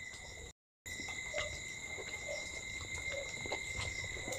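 A steady high-pitched whine over faint eating sounds: small clicks and soft chewing as momos are eaten by hand. The sound cuts out completely for a moment about half a second in.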